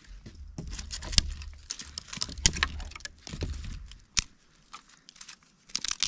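Dry sticks and twigs being handled, snapped and laid in a fire pit: a run of sharp cracks and rustles, thinning out after about four seconds.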